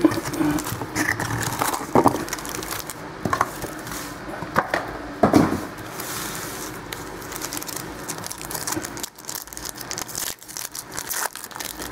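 Trading card boxes, packs and cards being handled: irregular rustling and crinkling of pack wrappers, with light clicks and taps.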